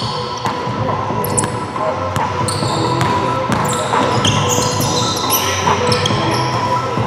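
Basketball game play: sneakers squeaking on the court floor in many short, high chirps, with a basketball bouncing.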